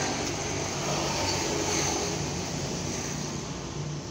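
Road traffic: a motor vehicle driving past, engine and tyre noise swelling over the first couple of seconds, then fading.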